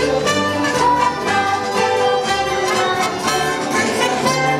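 Orchestral holiday music with strings and brass, the ride soundtrack of a dark boat ride's Christmas overlay.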